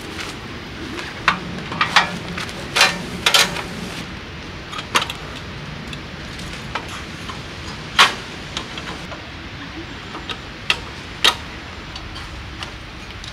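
Scattered sharp metal clicks and clanks, about a dozen in all, the loudest about eight seconds in, as a folding metal fire pit with a perforated grate is unfolded and its side panels are set into place.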